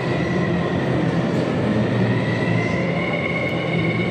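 Electric motor and propeller of a half-scale RC Fokker Dr.1 triplane in flight: a steady whine with a low hum beneath, rising a little in pitch about halfway through.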